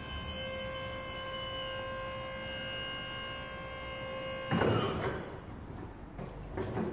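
Electric hydraulic pump motor of a battery-powered drum stacker whining steadily as the mast lifts the drum clamp head, cutting off suddenly about four and a half seconds in with a burst of noise. A second short burst of noise comes near the end.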